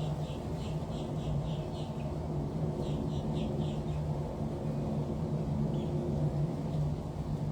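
A bird giving rapid high chirps, about five a second, in two short runs in the first half, over a steady low hum.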